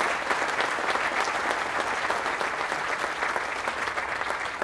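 Audience applause, steady clapping from many hands, dying away just after the end.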